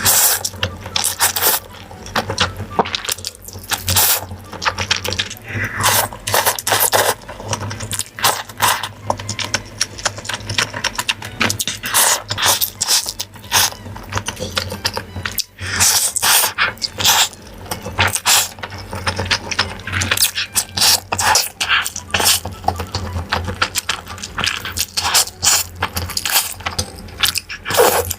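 Close-miked eating sounds: a person chewing food, with a dense, irregular run of wet clicks and mouth smacks over a faint steady low hum.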